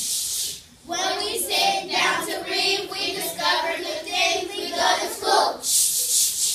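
A group of children singing a line of a song together, set between short bursts of a hissing "ch ch ch" rhythm at the start and again near the end.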